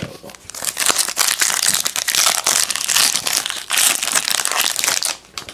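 Foil wrapper of a Panini Prestige basketball card pack crinkling with dense, rapid crackles as it is pulled and torn open by hand. The crinkling stops just before the end.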